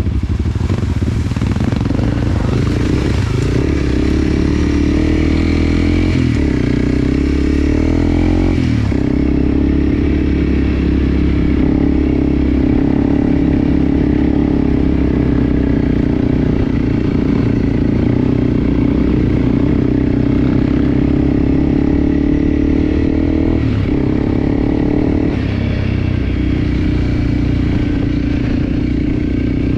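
Enduro motorcycle engine running steadily, its pitch shifting a few times as the throttle changes, with some clatter.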